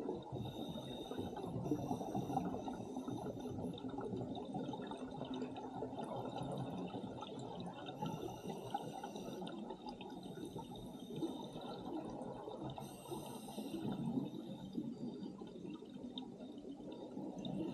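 Underwater sound of scuba diving: a steady low rush of water around the camera, with short hissing bursts of regulator breathing and exhaled bubbles a few times, about a second in, near eight seconds, near thirteen seconds and again at the end.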